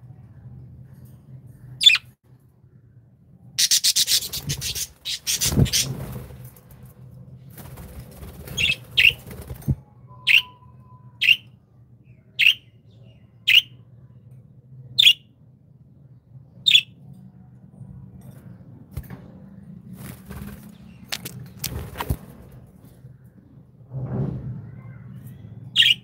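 Pet budgerigars giving short, sharp chirps, about one a second for a stretch in the middle, with a brief flurry of wing flapping about four seconds in. A steady low hum runs underneath.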